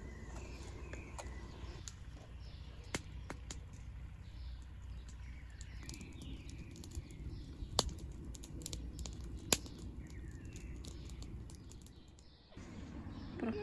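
Small birds chirping repeatedly over a steady low outdoor rumble, with a few sharp clicks scattered through.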